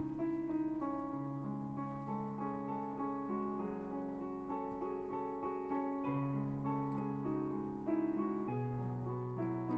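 Background piano music playing slow, held notes and chords.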